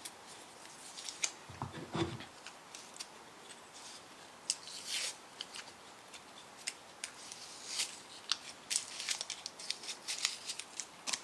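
Adhesive tape being pulled off the roll, torn and wrapped tightly around two glued wooden pen blanks, giving an irregular run of short crackles and rips.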